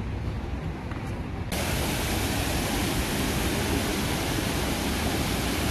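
Steady rushing of falling water, a loud even hiss that starts abruptly about a second and a half in. Before it there is a low rumbling noise.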